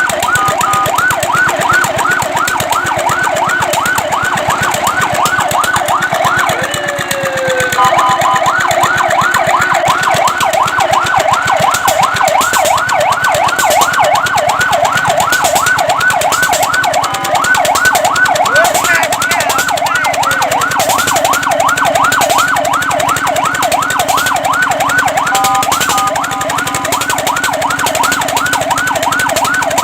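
Fire truck siren sounding continuously in a fast yelp, rising and falling several times a second. About seven seconds in, it briefly breaks into a slower falling tone. Short steady tones cut in near the start and again about 25 seconds in.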